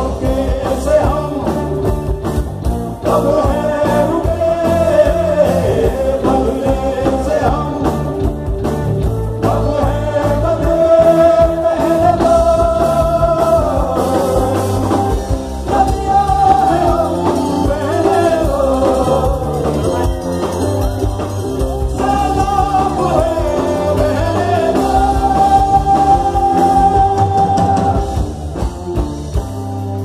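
Live rock band playing, with drum kit and guitars under a sung lead vocal that holds long, bending notes.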